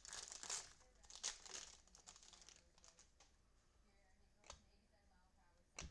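Trading cards being handled and flipped through by hand: soft crinkling and sliding for the first couple of seconds, then faint rustling and two light clicks near the end.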